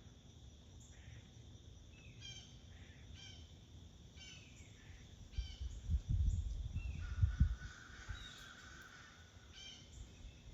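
Squirrel alarm barks: short, high, sharp calls repeated roughly once a second. A low rumbling thump on the microphone is the loudest sound, about halfway through.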